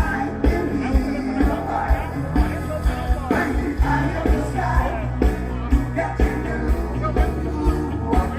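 Rock music with a steady drum beat of about two beats a second, guitars and singing.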